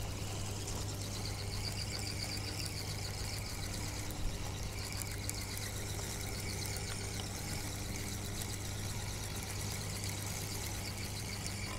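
A steady low mechanical hum, like a small engine or motor running, unchanging throughout.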